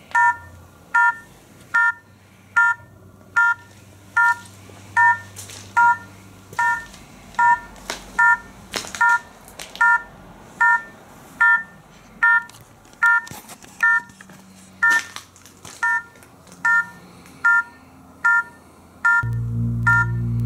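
An electronic beeper sounding a short three-note chiming beep at a steady pace of about one beep a second, with faint clicks and knocks between the beeps. A low steady drone comes in about a second before the end.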